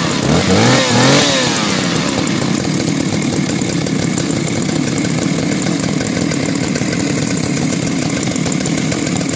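Vintage Solo two-stroke chainsaw blipped twice, revving up and dropping back within the first second and a half, then settling to a steady idle.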